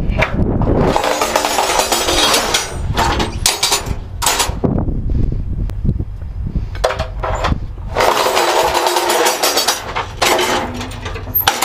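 Perforated steel car-hauler loading ramps dragged and scraped across concrete, in several rough scraping runs: the longest about two seconds each, near the start and again later, with shorter scrapes between. A steady low rumble of wind on the microphone underlies them.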